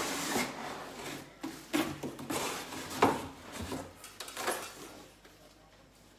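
Cardboard box flaps and plastic packaging rustling and crinkling as a box is opened and a wrapped item is lifted out, with a few sharp knocks around the second and third seconds. It quietens near the end.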